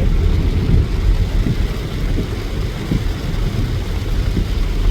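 Strong wind buffeting the phone microphone: a loud, gusty low rumble that swells and drops.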